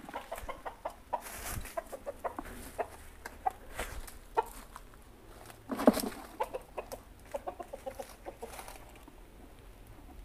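Chickens clucking in short, irregular calls, with a louder burst of sound about six seconds in.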